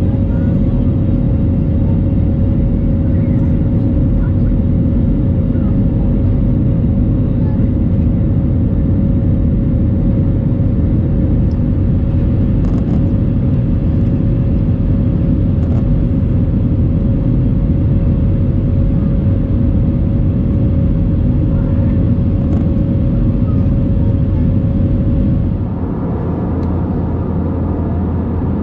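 Steady roar of an Airbus A321 heard inside the cabin while the jet climbs after takeoff, with a constant hum running through it. Near the end the noise drops a little and changes character.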